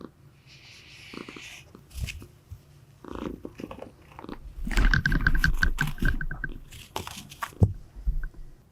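A pet chewing and crunching close to the microphone, irregular crunches and rustles that are busiest in the middle.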